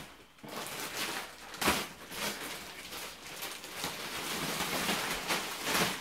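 Clear plastic wrap around a memory foam mattress rustling and crinkling as it is handled and pulled, with a few sharper crackles.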